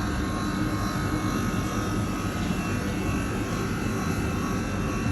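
A steady mechanical drone with a low rumble and a faint high tone running through it, without a break or change.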